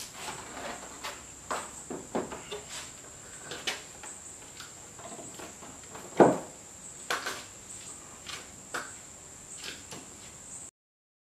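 Scattered knocks and taps of a plastic car bumper and its clamps being handled on a concrete floor, the loudest a single thump about six seconds in. Under it runs a steady high-pitched insect trill, and all sound cuts off abruptly near the end.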